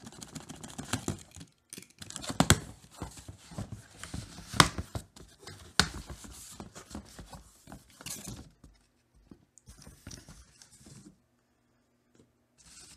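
Box cutter slicing tape on a cardboard box, then cardboard flaps and packing material being handled and torn open, with rustling, scraping and several sharp knocks. It is busiest and loudest in the first half and dies down to a few faint rustles near the end.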